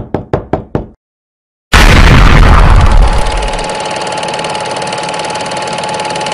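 Intro sound effects: about five quick game-style blips in the first second, matching the Pong-style bouncing ball on screen. About two seconds in comes a loud boom that settles into a steady rattling drone with a held tone, which begins fading near the end.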